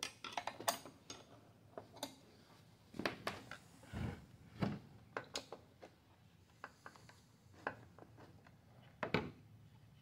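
Hard plastic and metal parts of a Stihl backpack blower's engine housing clicking, tapping and knocking irregularly as they are handled and fitted by hand, with two duller thumps around four to five seconds in.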